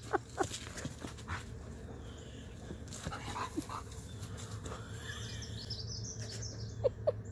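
A Siberian husky and an Alaskan malamute play-wrestling: scattered short scuffles and breathy noises, then a quick run of short yips near the end.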